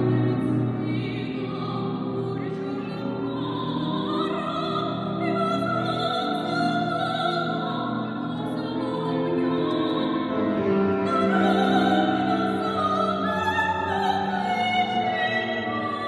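A woman singing a romance in operatic style with piano accompaniment, holding long high notes with vibrato.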